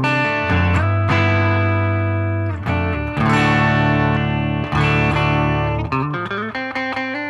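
Electric guitar with a P90 neck pickup (Gibson Les Paul Special Tribute P90) played through a BOSS GT-1000's low-gain crunch amp patch. Chords are struck and left to ring, changing every second or two.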